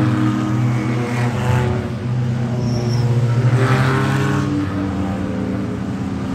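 Race cars on a formation lap driving past one after another at modest speed, their engines running at steady revs. A car swells up as it passes about a second in, and a louder pass comes around four seconds in.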